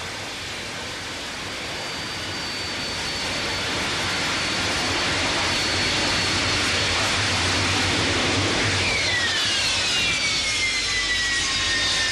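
Jet aircraft noise that builds up over several seconds, then a whine that falls in pitch from about nine seconds in as the aircraft flies past.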